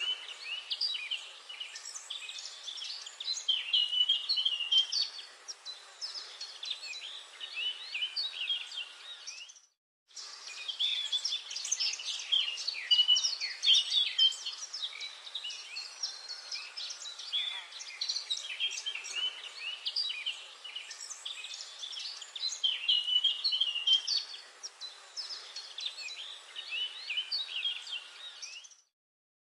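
Songbirds chirping and singing in woodland, many short overlapping calls and trills, with a brief break in the sound about ten seconds in.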